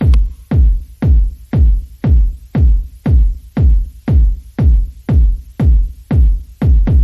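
Electronic dance music with a heavy kick drum on every beat, about two beats a second.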